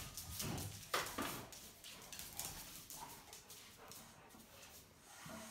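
Two Labrador retrievers playing, paws and claws scuffling on a wooden floor, with a few sharp knocks, the loudest about a second in, before the scuffling fades.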